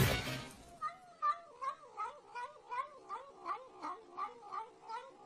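A cat yowling in a long, wavering string of calls, about three a second, each bending up and down in pitch.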